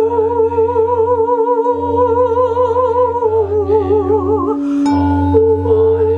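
Crystal singing bowls sounding in long sustained tones: a steady low tone held throughout, with a higher tone above it that wavers quickly and dips in pitch about three seconds in, coming back up near the end.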